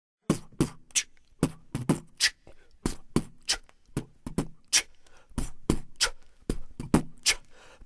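Sharp percussive hits in an uneven rhythm, about two to three a second, each with a short low tone underneath: the sparse opening of a hip hop track before the vocals come in.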